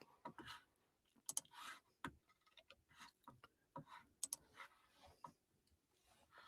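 Near silence: room tone with faint, scattered small clicks and soft rustles, a dozen or so spread irregularly through the pause.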